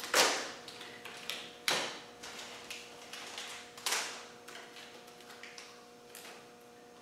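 A few sharp knocks and clicks of objects being handled in a workshop, spaced a second or two apart and fading, the first the loudest, over a faint steady hum.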